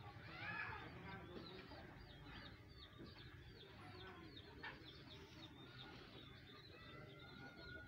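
Faint, high bird chirps repeating two or three times a second, with a short call near the start.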